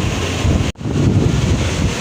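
Wind buffeting the microphone, a steady loud rumble, cut by a sudden split-second dropout about three-quarters of a second in.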